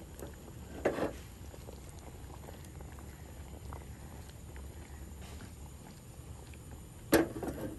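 Earthenware clay pot of curry being lifted and swirled by hand to mix the fish without stirring: a short knock about a second in, then a louder knock near the end as the pot meets the steel stove, over a low steady hum.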